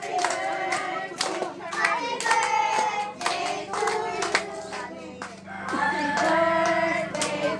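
A group of people clapping their hands in a steady rhythm while singing together.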